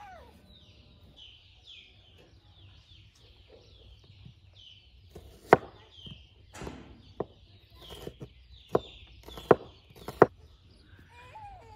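Kitchen knife chopping onion on a wooden cutting board: about seven sharp, uneven knocks in the second half. A bird chirps over and over throughout the first half and on under the chopping.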